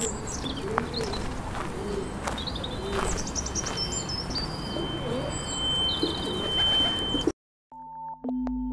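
Pigeons cooing and small birds chirping over a steady noisy background, with a thin steady high tone entering about three seconds in. The bird sounds cut off abruptly near the end, leaving a short silence before low, steady pure tones begin.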